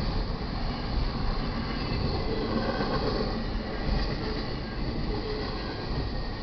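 Double-stack intermodal container cars of a freight train rolling past at track level: a steady rumble of steel wheels on the rails.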